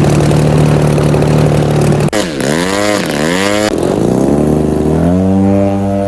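Engine of a large radio-controlled aerobatic airplane running at a steady pitch, then revved down and up in quick swings about two seconds in, then climbing to a higher, steady throttle. The changes come as abrupt jumps.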